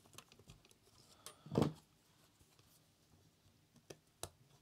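Faint handling noises of a CD player's plastic drive mechanism being worked apart by hand with a small metal tool: scattered light clicks, a louder knock about a second and a half in, and two sharp clicks near the end.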